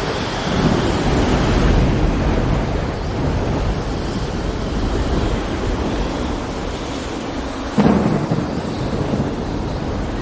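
Thunderstorm over the sea: heavy rain and waves make a steady wash, and thunder rolls in it. A rumble swells about half a second in, and a sharp thunderclap cracks about eight seconds in.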